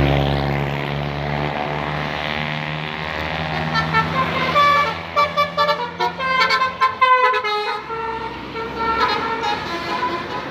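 A bus engine running, then the bus's telolet basuri horn plays a quick tune of short notes that change pitch rapidly, from about four seconds in to about eight, with a few more notes after.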